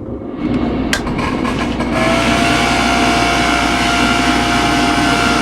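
Homemade magnifying transmitter (a Tesla-coil type device) switched on: a click about a second in, then its motor and belt-driven spark gap come up to a loud, steady buzz with a whine in it from about two seconds in.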